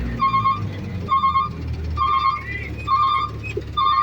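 Reversing alarm of a heavy machine at work in mud, beeping evenly about once a second over the low rumble of a running engine.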